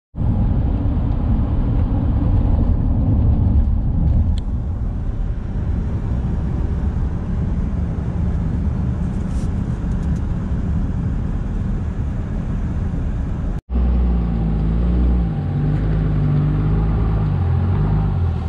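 Steady low rumble of road and engine noise inside a moving car. After a cut about two-thirds of the way through, a vehicle engine idles with a low, slightly wavering hum.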